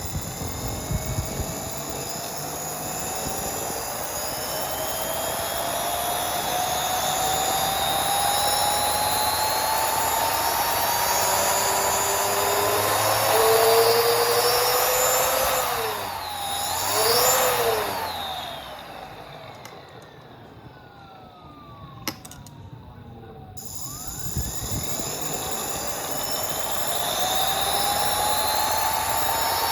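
Mechanical siren winding up, its wail rising slowly in pitch for about fifteen seconds, then rising and falling quickly before winding down almost to a stop. A single click comes near the low point, and the siren starts winding up again for the last few seconds.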